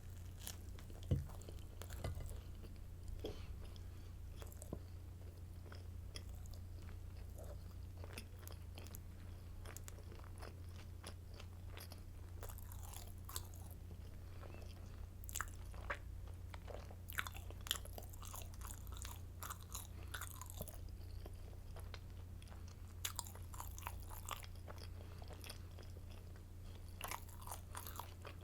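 Close-miked chewing of garlic stick baguette: irregular crunches and crackles of bread being bitten and chewed, the sharpest about a second in. A steady low hum runs underneath.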